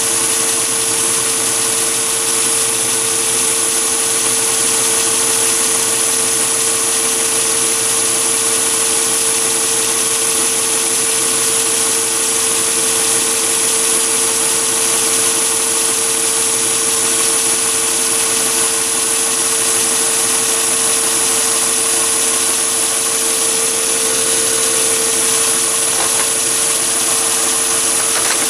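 Mini lathe running steadily while an end mill in its chuck mills a slot along an aluminium bar: a constant machine hum with a steady mid-pitched tone and a high whine over the noise of the cut.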